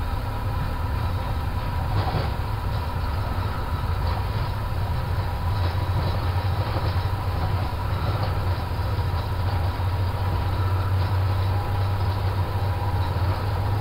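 Airbus A350 XWB on its takeoff roll at takeoff thrust, heard from the cockpit: a steady low rumble of the Rolls-Royce Trent XWB engines and the wheels running on the runway, with faint knocks and rattles as speed builds.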